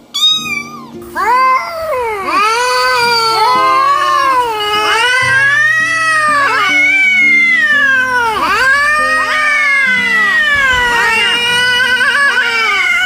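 Several angry cats yowling at once: overlapping, wavering wails that rise and fall in pitch without a pause.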